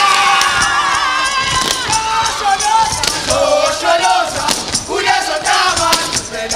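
Gumboot dance: a group of voices singing and chanting together over the stamps and slaps of rubber boots.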